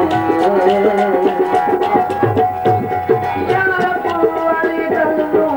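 Instrumental passage of live Sufi folk music: a hand drum keeps a quick rhythm under a melodic instrument playing a tune in held notes that step up and down in pitch.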